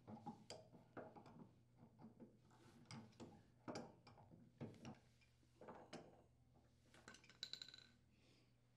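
Faint, intermittent creaks and clicks of pliers gripping and turning a plastic washing-machine leveling leg out of its threaded hole in the washer base, with a few light clicks and a brief ring near the end as the leg comes free and is set down.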